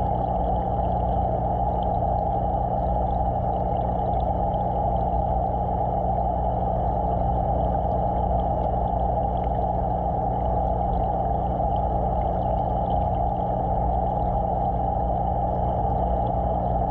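Steady underwater hum and water noise of running aquarium equipment, such as a filter or pump, picked up by a submerged camera. It does not change throughout.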